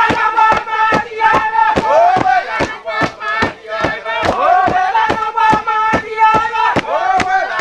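A group of villagers singing a chant in unison for a traditional dance, their voices swooping up into held notes, over sharp regular beats about four a second.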